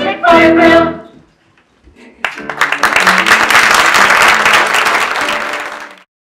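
The last sung note of a musical number with its accompaniment ends about a second in; after a short pause the theatre audience applauds, and the applause cuts off abruptly near the end.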